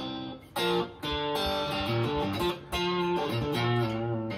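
Stratocaster-style electric guitar in open G tuning (D G D G B D), played with a clean tone: a short lick of single notes and little two-note shapes, each picked or pulled off and left ringing briefly.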